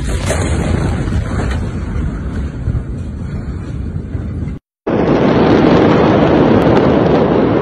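A dense, wind-like rush of noise on a phone microphone, from the Beirut port explosion, as the handheld phone is jostled. It cuts out abruptly about four and a half seconds in, and a louder, steady rush follows from the burning port warehouse.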